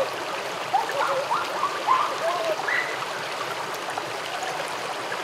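Shallow stream running over rocks, a steady rush of water. A few faint short calls come through it in the first three seconds.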